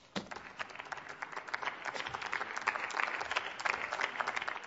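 Members of parliament applauding at the end of a speech: dense clapping that starts at once, swells to its peak about three seconds in and thins out near the end.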